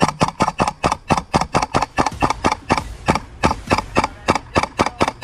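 Airsoft gun firing a rapid string of shots, about five sharp cracks a second.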